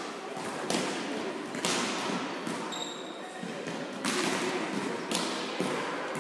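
Volleyballs being hit and bouncing on the hard floor of a large sports hall: four or five sharp thuds that ring on in the hall's echo, with players' voices underneath.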